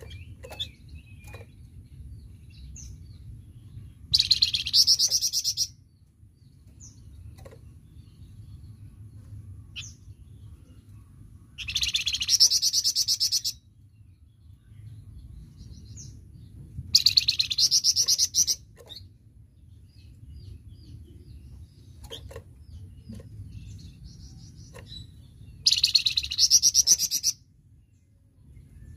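A caged songbird that Indonesian bird keepers call a flamboyan, singing in loud, rapid, high-pitched bursts ('tembakan'). There are four bursts of about a second and a half each, several seconds apart, with soft short chirps between them over a low steady rumble.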